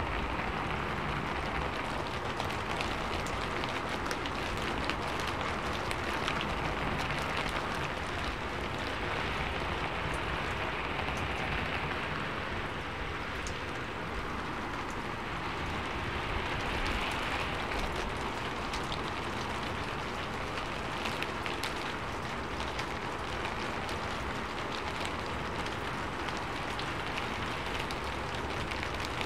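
Steady rain falling on a sheet-metal roof: an even hiss dotted with many small, sharp drop ticks.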